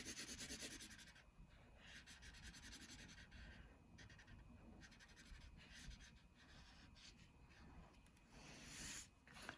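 Faint scratchy colouring on paper: quick back-and-forth strokes in short runs, with brief pauses between them.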